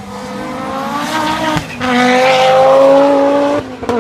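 Group B rally car engine at full throttle, rising in pitch, with a short break for a gear change about two seconds in, then louder and rising again until the throttle is lifted near the end with a sharp crack from the exhaust.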